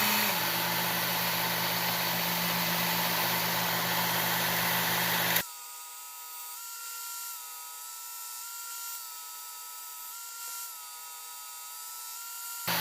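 Work Sharp belt knife sharpener running, its 120-grit abrasive belt grinding a knife edge during reprofiling. About five seconds in the loud grinding cuts off abruptly to a much fainter steady hum with a slightly wavering whine, and near the end the full sharpener sound returns.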